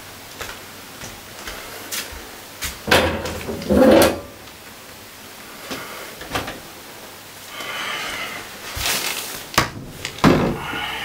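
Clicks and knocks of a metal electrical breaker panel being handled, its door and switches worked while the breakers are checked during a power outage. The loudest knocks come about three to four seconds in, with more around nine to ten seconds.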